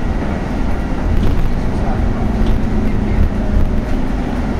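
Cabin noise of a Scania compressed-natural-gas articulated city bus: a steady low rumble from the engine, drivetrain and road, with a few light clicks and rattles.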